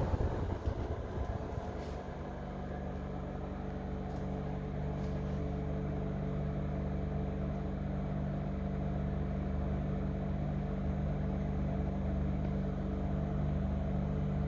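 Sampo AW-PC28D1 inverter air conditioner running with a steady low-pitched drone of several held hum tones, settling in about two seconds in. This is the abnormal low-frequency noise the owner says keeps him from sleeping; the maker calls it normal.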